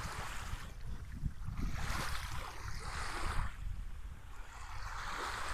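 Small sea waves washing in the shallows at the water's edge, rising and falling in three soft swells, with wind rumbling on the microphone.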